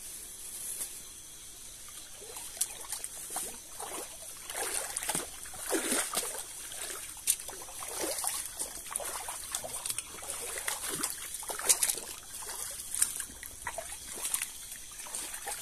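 Footsteps splashing and sloshing through a shallow rocky stream, in irregular steps and splashes, over a steady high insect chirr.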